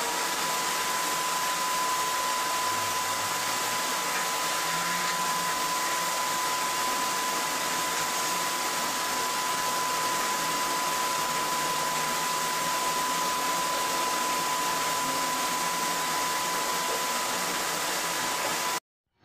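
Canister vacuum cleaner running steadily: a rush of air with a high motor whine that holds one pitch. It cuts off suddenly near the end.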